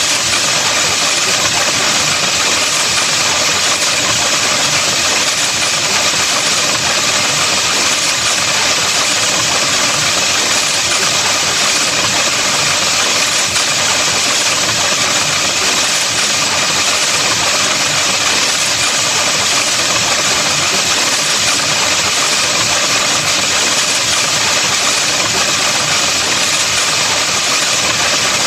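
A loud, steady buzzing hiss, an electronic sound effect, that holds the same pitch and level throughout.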